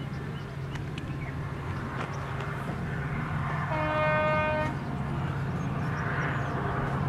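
Horn of an Indian Railways electric locomotive sounding once, a single held note of about a second, midway through, over the steady low rumble of the train approaching.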